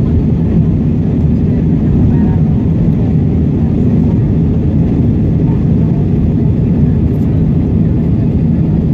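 Airbus A320 cabin noise after takeoff: a steady, loud, low roar of the jet engines and rushing air, heard from inside the cabin.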